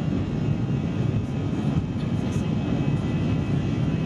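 Airbus A320 jet engines and rolling rumble heard from inside the cabin while the airliner moves along the runway: a steady, low, dense roar.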